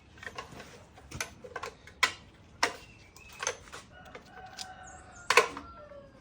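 Sharp metal clicks and knocks at irregular intervals, hand tools and engine parts being handled during the teardown of a 5.3 V8. About four seconds in comes a faint, drawn-out pitched call lasting just over a second.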